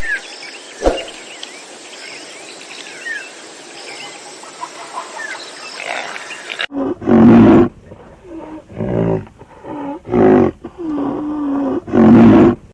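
Birds chirping over a steady outdoor hiss, then from about halfway a series of loud, drawn-out animal calls, the first and last the loudest.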